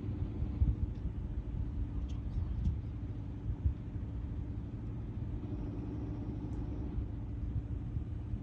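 A steady low rumble with a constant hum running underneath, the sound of a motor running. A few faint clicks are heard over it.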